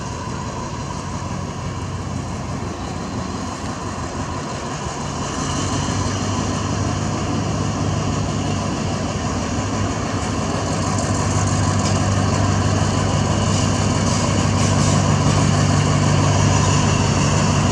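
Diesel-electric locomotive engine running as it hauls a passenger train in, a steady low hum that grows louder as it draws near, strongest near the end.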